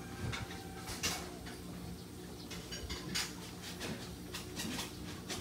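Quiet outdoor ambience: scattered short, high chirps and ticks, irregularly spaced, over a low steady hum.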